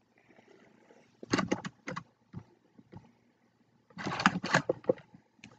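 Clicks and rustles of small grooming items being handled and taken out of a bag pouch, in two short bursts: one about a second in and a longer one about four seconds in.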